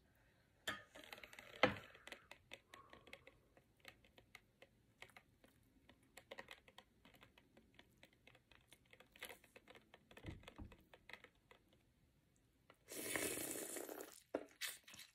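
Close-miked wet, sticky clicks and squishes as a king crab leg is worked through thick seafood-boil sauce: many small, irregular clicks. Near the end comes a louder, noisy bite into the sauce-coated crab lasting about a second.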